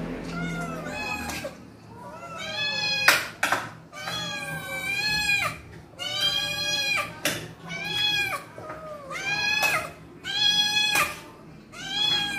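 A calico cat meowing over and over, about eight insistent meows that rise and fall in pitch, some short and some drawn out, begging for food at feeding time. A few sharp knocks fall between the meows, the loudest about three seconds in.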